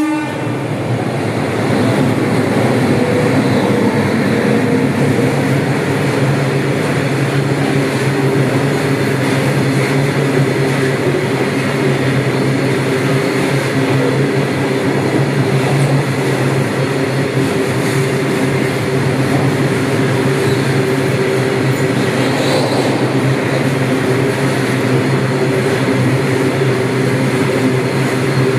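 Train running past at close range: a steady rumble with a low steady hum underneath, unbroken for the whole passage.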